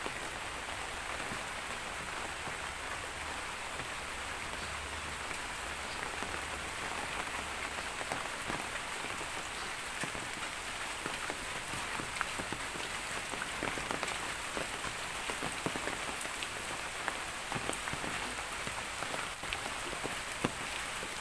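Rain falling steadily, with many small ticks of drops hitting surfaces.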